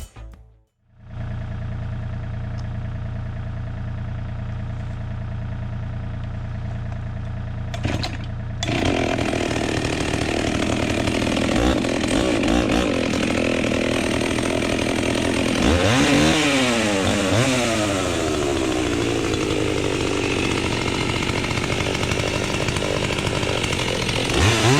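Husqvarna 61 two-stroke chainsaw running at a steady lower speed, then about a third of the way in opened up to full revs. Around the middle its pitch sags and recovers, as it does when the chain loads up in the wood, and it revs up again near the end.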